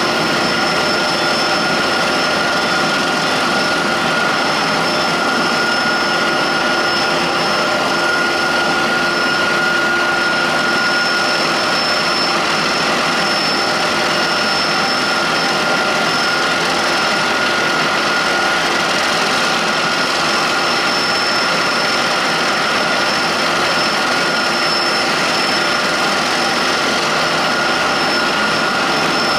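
Airbus H160's twin Safran Arrano turboshaft engines running steadily, a constant high turbine whine over a broad rushing noise.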